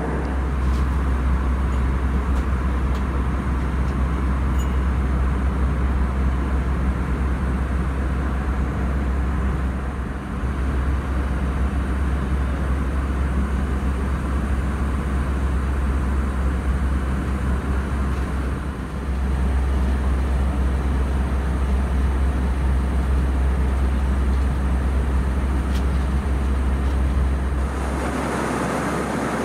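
Airbus A320 cabin noise in cruise: a steady deep drone of engines and airflow. It dips briefly twice, and near the end gives way to a lighter, hissier cabin sound.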